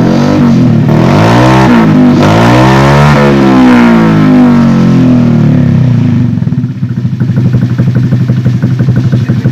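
Honda Vario 150 scooter's single-cylinder engine revved through an aftermarket exhaust, its pitch rising and falling in several blips, then dropping back to a steady pulsing idle about six seconds in.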